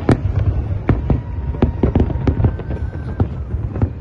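Aerial fireworks bursting: a rapid, irregular string of sharp bangs and crackles over a continuous low rumble.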